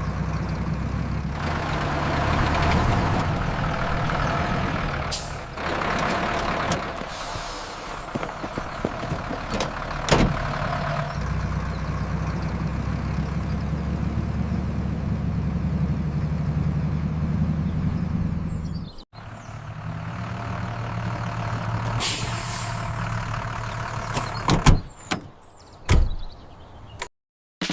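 A large vehicle's engine running steadily, with occasional hisses, and several sharp knocks near the end.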